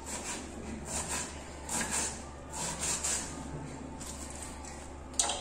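Kitchen knife cutting through a cabbage on a wooden board: a few soft, irregular crisp cuts about a second apart, over a low steady hum.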